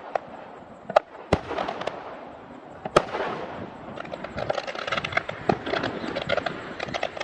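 Aerial fireworks bursting: a few sharp single booms about one, one and a half and three seconds in, then a dense run of crackling bursts.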